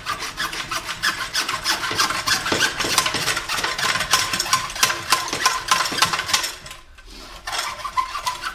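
A saw cutting through a sump pump discharge pipe in quick back-and-forth strokes. The strokes break off briefly about seven seconds in, then resume.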